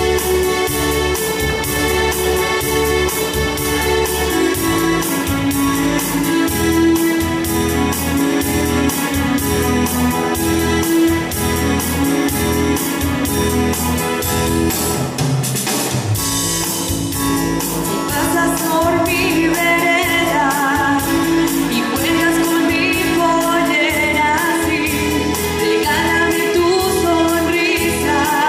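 Electronic keyboard playing a slow accompaniment of sustained, string-like chords over a bass line. A woman's singing voice with vibrato comes in over it in the second half.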